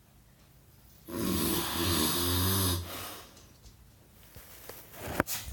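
A man snoring: one long snore starts about a second in and lasts under two seconds. It is followed by a sharp click and a low thump near the end.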